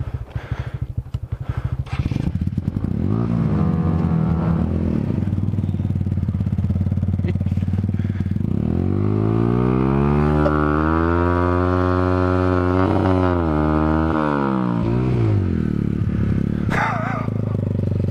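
Motorcycle engine idling and revved twice: a short rev about three seconds in, then a long one from about eight and a half seconds that is held high for several seconds before dropping back to idle.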